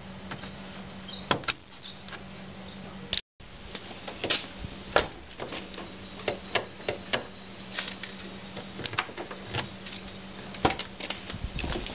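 Irregular clicks and knocks from a pickup's door lock and handle being worked, over a faint steady hum; the sound drops out briefly about three seconds in.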